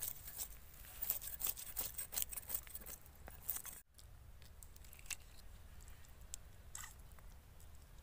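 Scales being scraped off a small bata fish against the blade of a boti: quick scratchy rasps and ticks, dense in the first half and sparser after a brief dropout about four seconds in.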